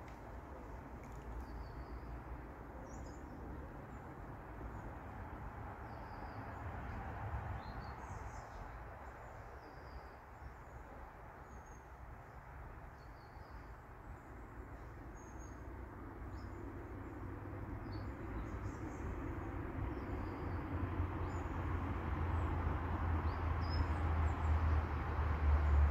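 Small birds chirping and calling in short scattered notes over a steady outdoor hiss, with a low rumble that grows louder over the last few seconds.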